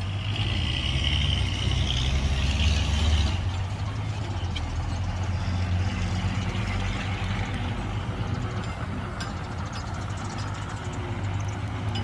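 Heavy diesel engine of earth-moving machinery running steadily. It runs louder, with a higher whine, for the first three seconds or so, then eases back about three and a half seconds in.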